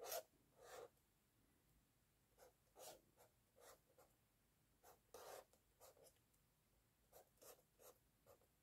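Red felt-tip pen drawing short strokes on sketchbook paper: a series of faint, separate scratchy rasps, one per line drawn, with a pause of about a second and a half near the start.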